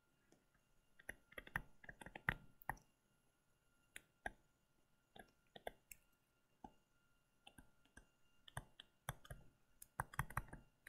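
Faint, irregular clicks and taps of a stylus on a tablet screen during handwriting.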